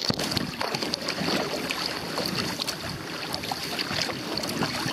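Water splashing and lapping against the bow of a kayak moving through choppy open water, a dense irregular wash of small splashes.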